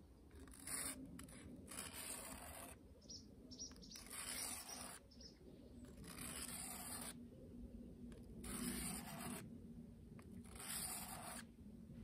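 Bushcraft knife's bevelled edge pushed slowly across a diamond sharpening plate: a rasping scrape with each stroke, repeated every second or two while the blade's bevel is sharpened.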